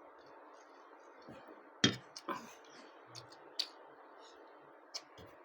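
A person eating: quiet chewing with a few sharp mouth clicks and lip smacks, the loudest a little under two seconds in.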